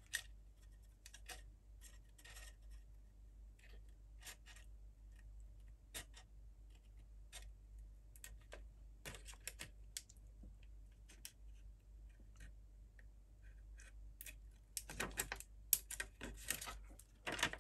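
Straight scissors snipping a clear vacuum-formed plastic slot car body shell: a string of faint, sharp little cuts, coming thicker and louder near the end.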